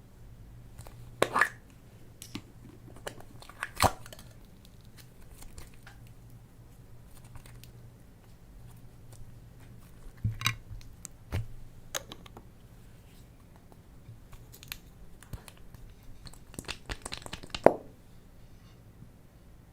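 Slime being worked by hand with mixed-in bits: scattered crackles, sticky tearing sounds and sharp clicks. The busiest and loudest stretch comes near the end.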